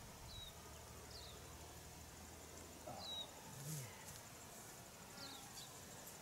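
Faint open-country ambience: a steady high insect trill, with a handful of short, falling bird chirps and a brief low sound a little past the middle.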